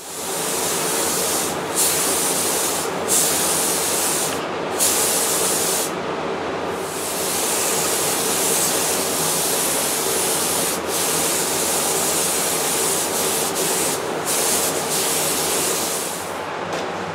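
Spray gun hissing as it lays a coat of finish onto a wooden clock case, with several short breaks between passes and a steady hum underneath.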